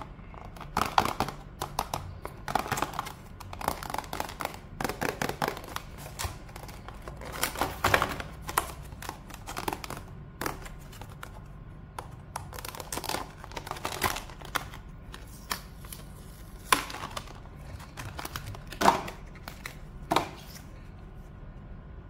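Stiff clear plastic clamshell packaging being handled and opened by hand: crinkling and crackling plastic with sharp clicks, busy through the first half, then a few separate louder snaps near the end.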